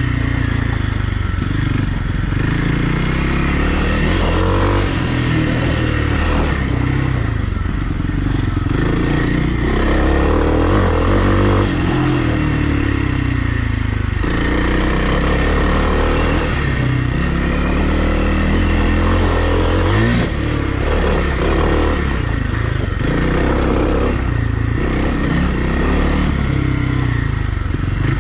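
2020 Kawasaki KLX300R's single-cylinder four-stroke engine running under way, its pitch rising and falling again and again as the throttle is opened and closed, with a sharp rev about twenty seconds in.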